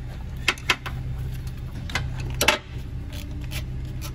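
Light metallic clicks and clinks of hardware being handled by hand at the A/C compressor's mounting stud and wiring-harness bracket. There are two sharp clicks about half a second in, a louder clink around two and a half seconds and fainter ticks after, over a steady low hum.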